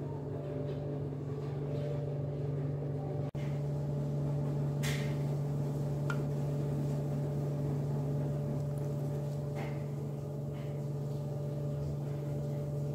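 A steady low hum with several overtones, like a motor or electrical appliance running, with a few faint clicks on top. It drops out for an instant about three seconds in.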